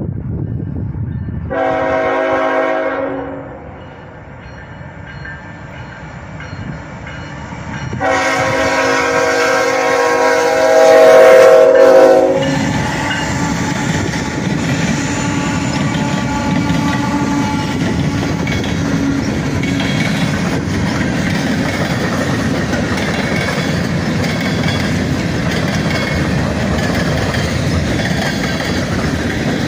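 Norfolk Southern freight train led by ES44AC locomotive 3650 sounding its air horn for a grade crossing: a short blast about two seconds in, then a long, loud blast from about eight to twelve seconds in. The locomotives then pass at speed, followed by freight cars, with a steady rumble and clatter of wheels on the rails.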